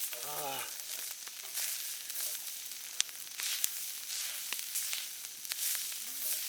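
Food sizzling and frying on a hot iron cooking plate over a campfire, a steady hiss dotted with sharp pops and crackles; mapo tofu ingredients cooking on high heat and starting to catch and burn.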